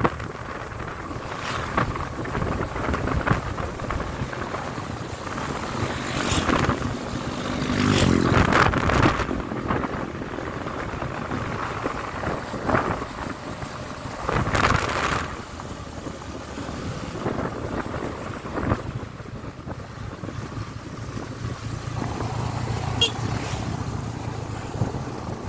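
Motorcycle engine running as the bike rides along, with wind buffeting the microphone in gusts.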